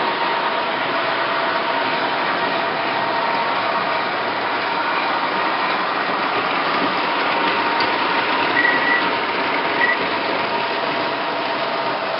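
O-gauge model subway trains running on three-rail track: a steady whir of electric motors and wheels with a constant whine, and two brief higher tones about three-quarters of the way through.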